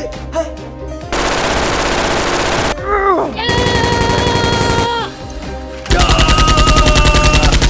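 Three bursts of rapid automatic gunfire: the first about a second in, the second near the middle, and the third, heaviest, starting about six seconds in.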